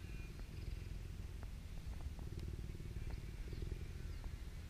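Cheetah purring steadily while being stroked under the chin, a continuous low rumble that swells and eases with each breath in and out.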